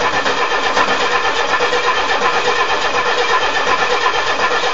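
Starter cranking a Nissan Z24 four-cylinder engine with a steady rhythmic chug, without it catching. This is a no-start on the first try after a head gasket replacement, which the owner suspects may be an ignition timing problem.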